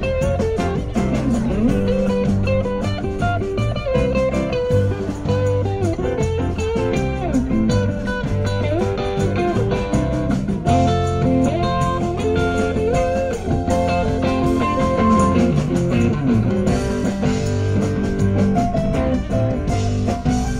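Live rock band playing an instrumental jam: an electric guitar lead with bent, gliding notes over bass and drums.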